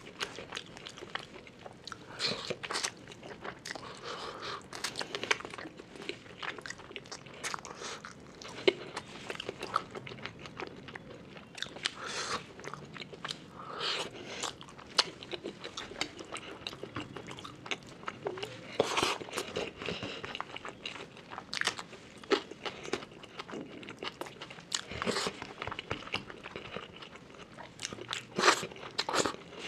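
Close-miked chewing and mouth sounds of a person eating rice and curry by hand: irregular wet smacks and sharp clicks.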